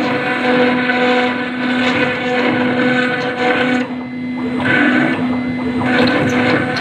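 CNC router spindle running with a steady hum while its bit grinds into granite, the grinding noise swelling and easing as it cuts.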